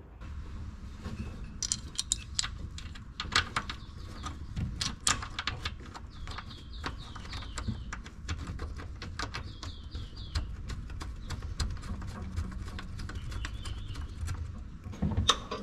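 Light, irregular clicks and taps of hands working a crank trigger sensor into its clamp bracket beside the toothed crank wheel while positioning it to set the air gap, over a faint low hum. A few short, faint, falling high chirps come around the middle.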